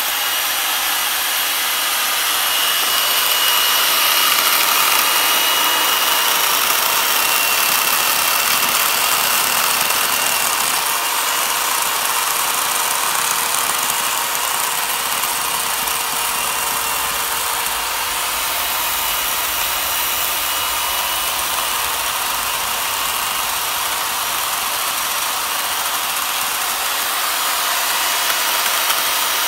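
Corded electric chainsaw running steadily while its bar carves into the dry deadwood of a bonsai trunk.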